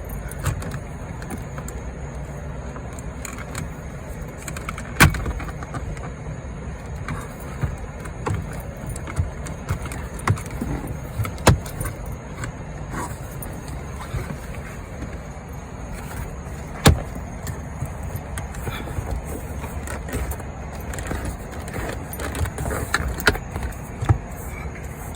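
Scattered clicks and knocks of plastic dash trim and tools being handled and fitted, a few sharper snaps standing out, over a steady low rumble.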